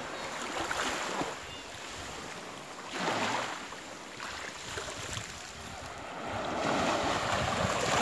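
Small waves washing in over a sandy beach strewn with shells and seaweed, the wash swelling about three seconds in and again, louder, near the end.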